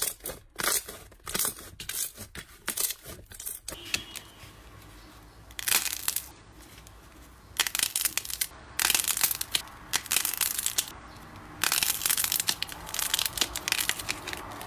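Slime squeezed and pulled apart by hand, giving quick runs of sticky crackles and pops. After a short lull about four seconds in, the crackling comes back in longer, denser bursts.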